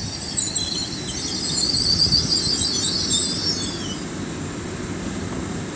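Great Western Railway Class 800 train braking to a stop, its wheels giving a high, wavering squeal over a low rumble. The squeal fades out after nearly four seconds, leaving the rumble.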